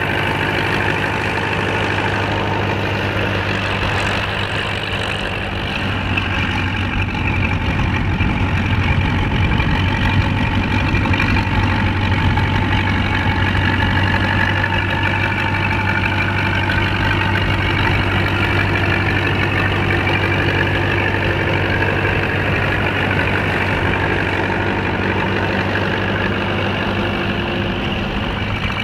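Tractor's diesel engine running steadily under load as it pulls a plough past, growing louder about eight seconds in and easing off a little later.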